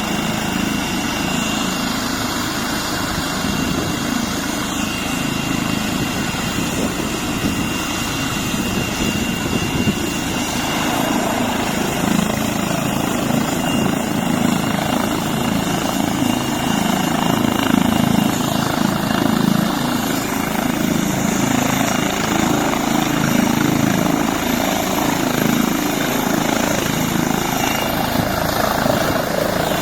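Helicopter running steadily overhead: rotor noise with a constant high whine. It grows a little louder about ten seconds in.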